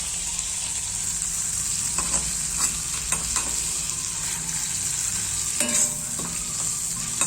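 Fish intestines frying in a little hot oil in a small kadhai: a steady sizzle broken by several sharp pops, a few in the middle and the loudest near the end, as the intestine bursts in the heat.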